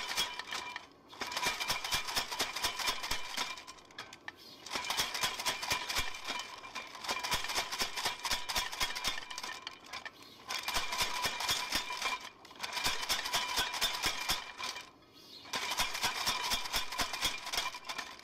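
Power hammer pounding a red-hot steel bar with rapid, evenly spaced blows, stopping briefly several times as the bar is repositioned.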